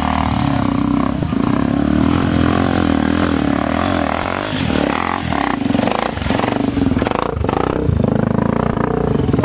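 Dirt bike engines running close by, revving up and down unevenly at low speed.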